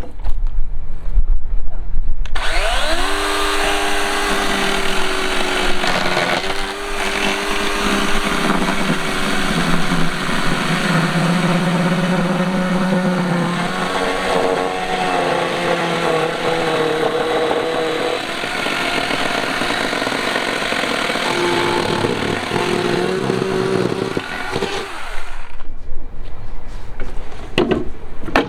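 Small battery-powered chainsaw spinning up with a quick rising whine about two seconds in and cutting through a log for roughly 23 seconds. Its motor pitch sags and recovers as the chain bites into the wood, then it runs down and stops near the end.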